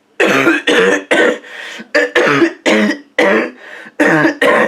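A man in a hard, persistent coughing fit: about nine loud coughs in quick succession, some coming in pairs. The coughing is bad enough to prompt the advice to get it checked out.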